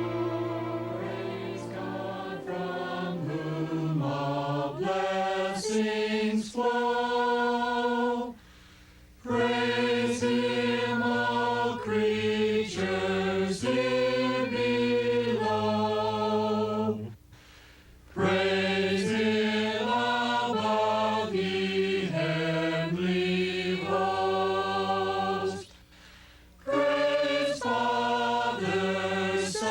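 A choir singing in several parts, with vibrato, in long phrases broken by three short breaths: about a third of the way in, around the middle, and near the end.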